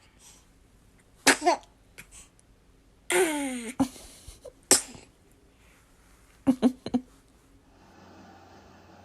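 A baby sneezing several times: short, high sneezes, one longer with a falling pitch, then a quick run of three tiny sneezes near the end.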